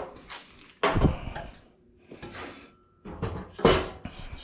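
Knocks and clunks of a stock radiator being handled and set into place in the engine bay. There is one sharp knock about a second in and a cluster of clatter near the end.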